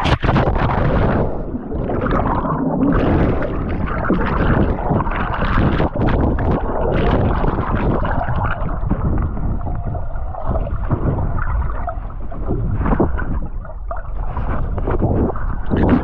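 Water churning, splashing and gurgling right at the microphone of a waterproof action camera, muffled and full of low rumble and irregular knocks. It starts with a sharp splash.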